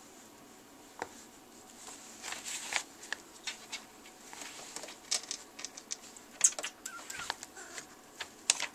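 A kitten's paws rustling and scratching at printed paper sheets and the printer's plastic output tray: irregular taps and crinkles, the loudest about six and a half seconds in.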